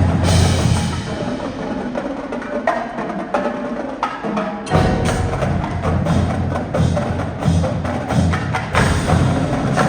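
Winter percussion ensemble playing: a dense run of sharp drum and wood-block-like strokes over ringing mallet percussion. The low drums drop out about a second in and come back in strongly just before the middle.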